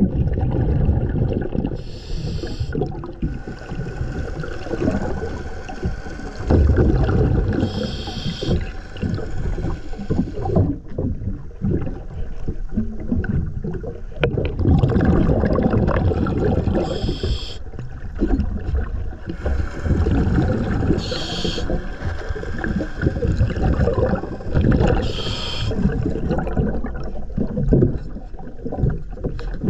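Scuba diver breathing through a regulator underwater: five short hissing inhales, a few seconds apart, between longer stretches of bubbling exhaled air.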